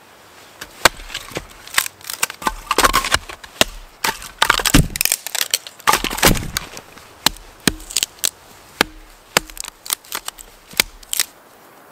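Axe chopping and splitting dry, dead wood into kindling on a chopping log: a quick, irregular run of sharp chops, several of them followed by the wood cracking and tearing apart, stopping shortly before the end.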